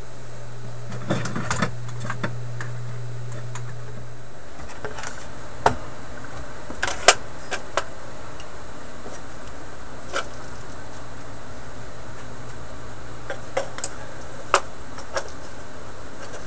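Scattered light clicks and taps from hands and tools working on the record player cabinet's paper lining, over a steady low hum that drops in level about four seconds in.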